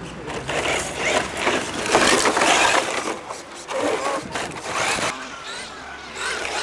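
Electric radio-controlled rally car driving on a gravel track, its motor whining and changing pitch with the throttle over the noise of the tyres on the gravel.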